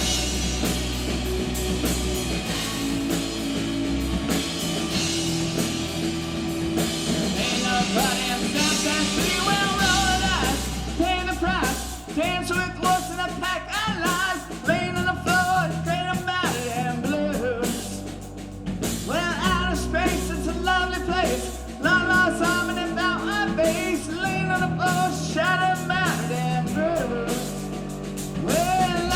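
A rock band playing live: bass and drums hold a steady groove under a wavering lead melody that comes in about ten seconds in.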